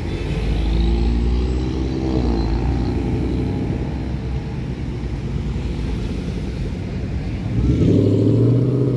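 Ford Mustangs' engines rumbling low as the cars pull away slowly one after another, with an engine note rising and falling about a second in. Another car's engine grows louder near the end.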